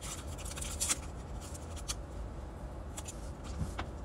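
Plastic lunch-container lid and bowl being handled: light rubbing and a few small clicks and scrapes, over a low steady room hum.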